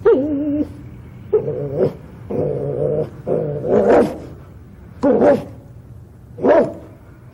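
Performer-voiced dog noises for a costumed muppet dog: a string of about six short pitched calls that bend up and down, as the dog squirms at the itch of a flea.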